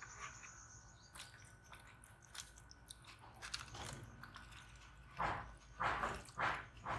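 Pacman frog giving a run of short croaks, about two a second, starting near the end, after a few faint clicks and taps from the plastic tubs.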